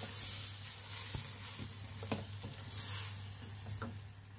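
Sugar snap peas, carrot and chicken in sauce sizzling in a wok, with a wooden spatula stirring and a few sharp clicks as it knocks the pan. The sizzle fades near the end, over a steady low hum.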